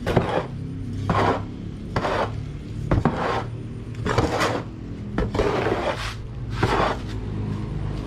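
Long-handled metal shovel scraping and turning a dry mix of coconut meal, broken rice and rice bran in a large plastic tub, in repeated strokes roughly one a second.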